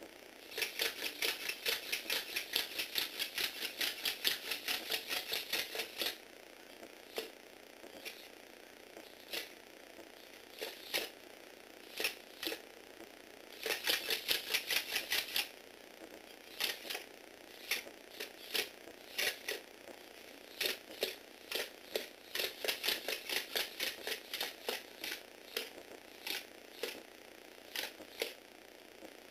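Small Lego Technic walking robot clattering on a wooden floor: runs of rapid plastic clicks, about seven a second, broken by slower scattered clicks.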